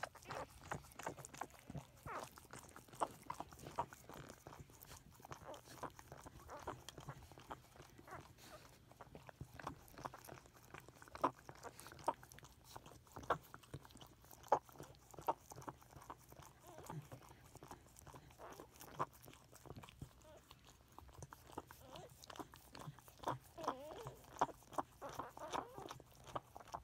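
Pembroke Welsh Corgi mother licking her just-born puppy to clean and stimulate it: a continuous, irregular run of quiet wet licking and mouth-smacking clicks.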